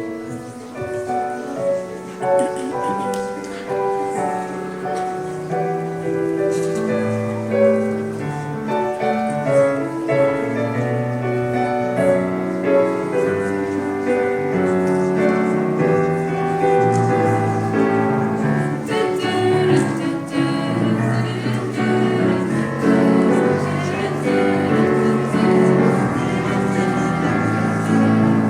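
Music: a choral-sounding sung piece with piano accompaniment, played without pause.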